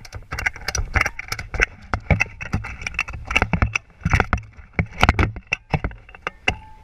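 Ratchet strap being worked by hand: a quick, irregular run of sharp metallic clicks from the ratchet buckle, over a low steady hum.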